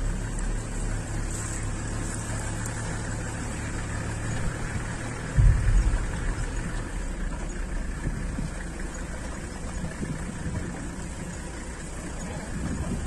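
Steady low rumble of outdoor noise on a handheld phone's microphone, with one loud low thump about five and a half seconds in.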